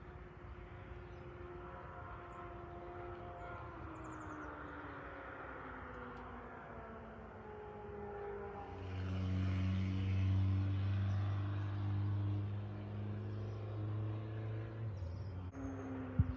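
An engine running, a drone made of several tones that slowly fall in pitch, then a louder low hum from about nine seconds in that stops a little before the end, followed by a knock.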